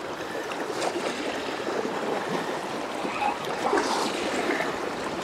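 Small waves lapping and washing over a shallow stony lake shore in a steady wash.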